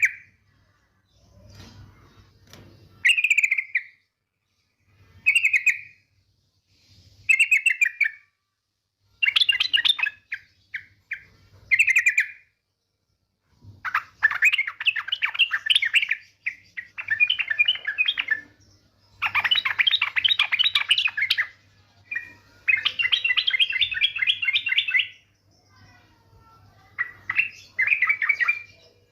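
Female yellow-vented bulbul (trucukan) calling in rapid chattering trills: short bubbly phrases every couple of seconds, then longer fast chattering runs in the middle, with a faint low hum underneath.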